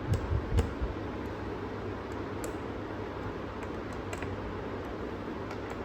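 A few soft thumps in the first second, then scattered light clicks from a laptop being handled and checked over, above a steady background hum.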